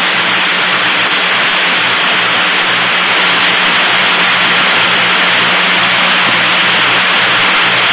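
Steady hiss on an open radio communications loop, with a low electrical hum beneath it and no voices.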